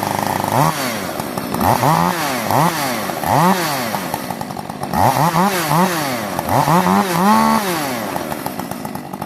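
Rebuilt Husqvarna 562 XP two-stroke chainsaw revving up and dropping back, the throttle blipped about eight times in quick succession while the saw is warmed up.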